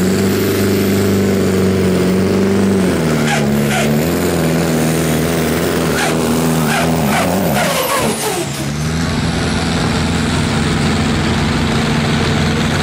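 Diesel pulling tractor's engine running hard under the load of a pulling sled, its pitch dropping about three seconds in and wavering as it lugs, with several short hissing bursts. About eight seconds in, another tractor's engine takes over, running steadily.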